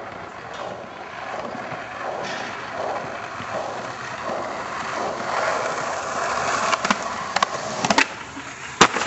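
Skateboard wheels rolling over asphalt, growing louder as the board picks up speed. Near the end come a few sharp clacks as the tail pops an ollie, then one loud slap of the board landing.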